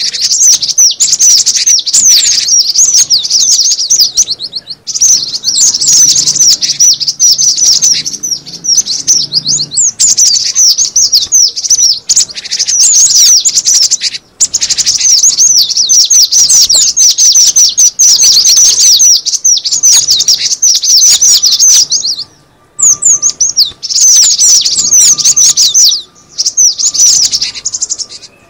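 Cinereous tit (gelatik batu) calling in a rapid, continuous run of high chirps, broken by a few short pauses. This is the bird's call as played to lure the species.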